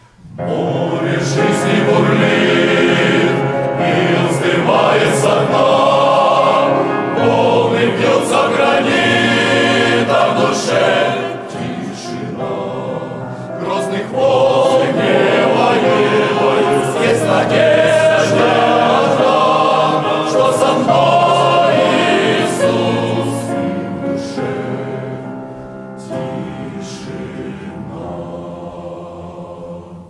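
Men's choir singing a Russian hymn, many voices in harmony, softer for the last several seconds before the phrase ends.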